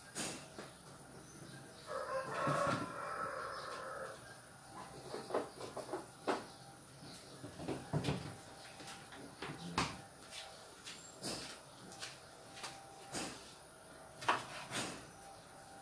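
A covered pan of buttered shrimp simmering on a gas stove, giving irregular soft pops and clicks. About two seconds in, a rooster crows once for about two seconds.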